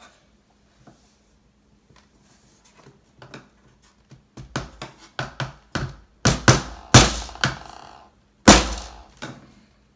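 Hammer driving a short nail into a thin wooden paddle on a tabletop. About four seconds in, light taps start and build to a dozen or so harder blows, the loudest two near the end.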